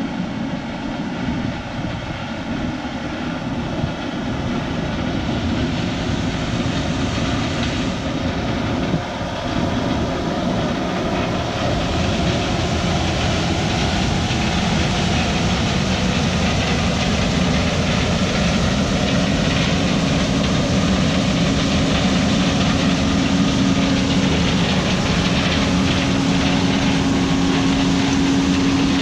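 Diesel engine of harvest machinery running loud and steady under load. The sound builds slightly over the first dozen seconds, and a steady hum grows stronger in the second half.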